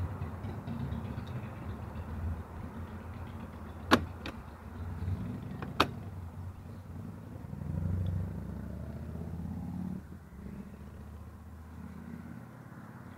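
Two sharp plastic clicks about two seconds apart as a Honda ADV150 scooter's fuel cap is closed and its fuel filler lid is pressed shut, over a low rumble.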